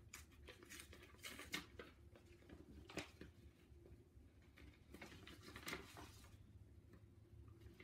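Faint paper rustling and a few light scrapes and taps as an envelope is opened and a card is pulled out of it.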